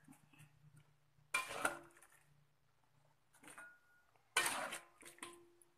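Metal spatula scraping and clinking against a wok while stirring and scooping braised meat and sauce, in three separate strokes: one about a second and a half in, a faint one past three seconds, and a louder one past four seconds.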